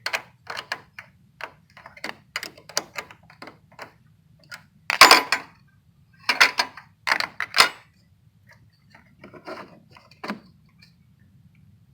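A hand tool working the negative battery terminal clamp loose: quick runs of clicking, then several louder knocks about five, six and a half, seven and a half and ten seconds in.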